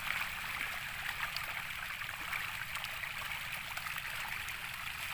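A school of pangasius catfish splashing and churning at a pond's surface as they take thrown feed: a steady patter of many small splashes.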